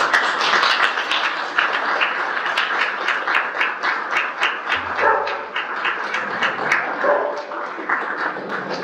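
Audience applauding: dense, steady clapping that starts abruptly and eases slightly toward the end.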